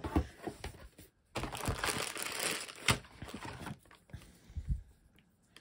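Board game pieces being handled in a cardboard box: a few light knocks, then about two seconds of plastic packaging crinkling, with a sharp click partway through.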